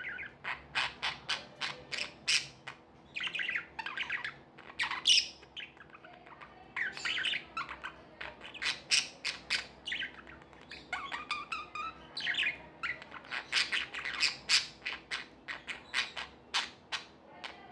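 Budgerigars chirping and squawking in quick runs of short, sharp calls, several a second, with brief pauses between runs.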